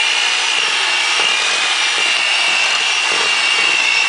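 Electric mixer running steadily with a high whine, its beaters churning cookie dough of butter and milk.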